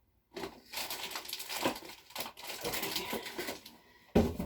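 Irregular rustling and light clicking of shower fixture parts being handled, with one louder knock near the end.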